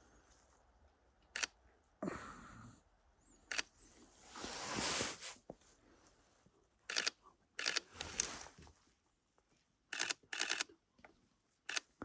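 Camera shutter firing, some single clicks and some short rapid bursts in burst mode. A longer soft rustle comes about four to five seconds in.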